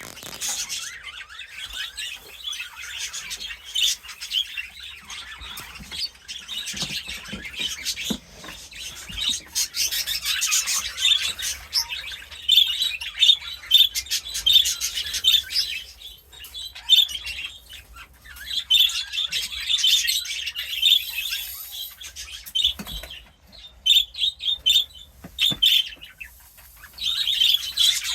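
Small caged birds chirping and chattering in quick runs, with scattered rustles and clicks.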